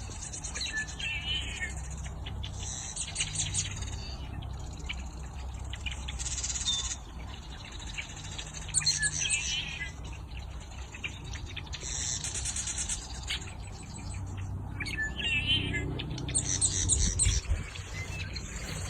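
Wild birds singing, with repeated short high chirps and trills every few seconds over a steady low rumble.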